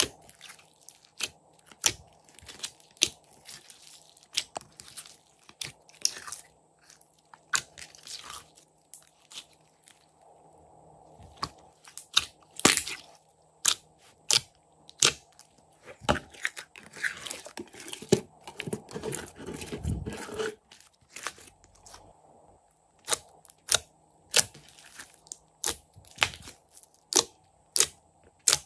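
Glossy glitter slime being squished and kneaded by hand, making sharp wet clicks and pops at an irregular rate of about one or two a second. About two-thirds through comes a longer, denser squelching stretch.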